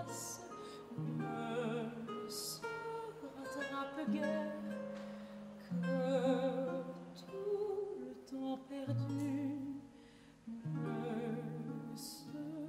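Mezzo-soprano voice singing with vibrato over a plucked lute and long held low notes.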